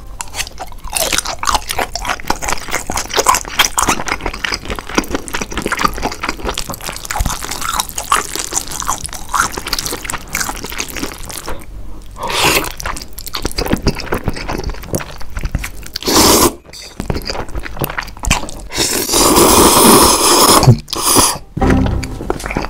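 Close-miked eating: a man chews sausage with wet, clicking mouth sounds, then slurps spicy fire noodles in loud bursts about 12 s and 16 s in, with a longer slurp near 19–20 s.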